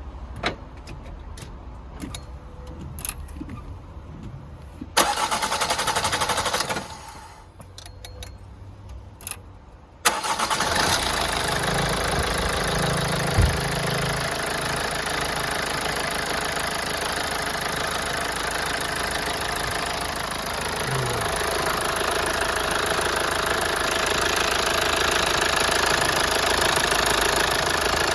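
A few light clicks and knocks and a loud noisy burst of about two seconds. Then, about ten seconds in, the Toyota Avensis D-4D diesel engine starts and settles into a steady idle with its freshly replaced injector pipe.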